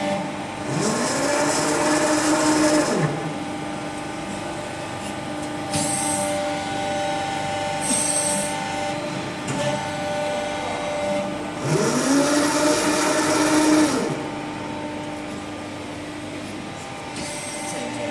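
Hydraulic CNC press brake running with a steady pump hum. Twice, about a second in and again around twelve seconds, a whine rises in pitch, holds for about two seconds with a hiss, then drops away as the ram moves. Short clicks fall in between.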